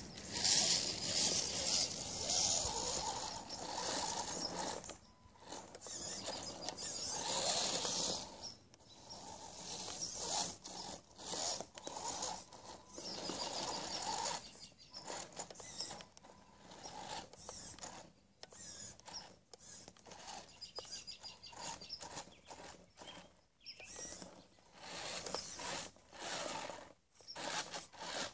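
1/10-scale RC rock crawler's electric motor and gear train whining in stop-start bursts as the throttle is worked, with grinding and scrabbling mixed in while it crawls over dirt.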